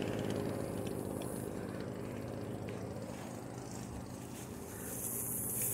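Steady low motor hum.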